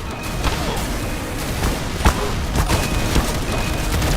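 A rapid, dense series of sharp cracks and bangs, with one louder bang about two seconds in.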